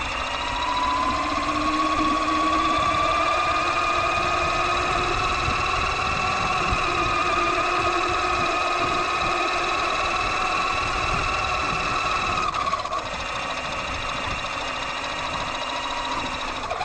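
Axial Yeti XL RC truck's electric motor and gears whining as it drives, with its tyres rumbling on concrete, heard from a camera mounted on the truck. The whine rises in pitch in the first second as the truck speeds up, holds steady, and dips briefly about three-quarters of the way through.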